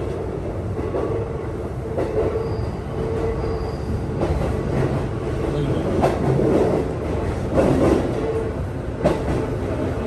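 Train running along the track: a steady rumble with a faint held hum and a few brief clicks from the wheels.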